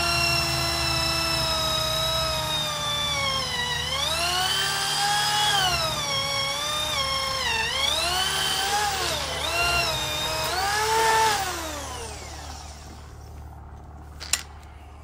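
Electric drill boring a bolt hole through a wooden post: a steady motor whine, then from about four seconds in the pitch sags and recovers again and again as the bit bogs down in the wood, before the drill spins down about twelve seconds in. A single sharp click follows near the end.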